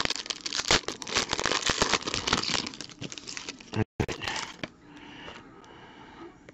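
Trading-card pack wrapper crinkling and tearing as it is opened by hand, a dense run of crackly rustles that stops about four and a half seconds in, leaving only faint handling noise.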